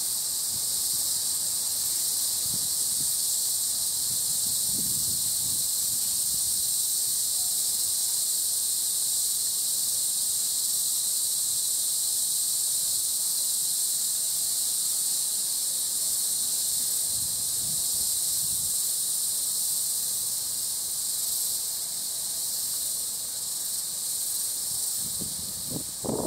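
Steady, high-pitched insect chorus, a continuous shrill drone with no break.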